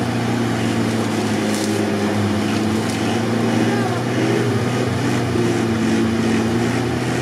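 Suzuki Samurai's engine running hard under load, its pitch wavering up and down with the throttle, as the 4x4 churns its wheels through a deep, sticky bog.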